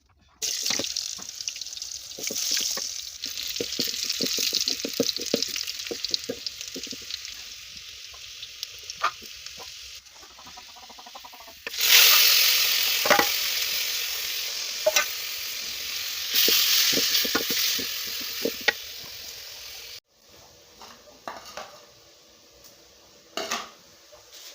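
Greens frying in cooking oil in a metal sufuria, sizzling steadily while a spoon stirs and knocks against the pot. The sizzle jumps louder about twelve seconds in and cuts off suddenly near the end, leaving only a few faint knocks.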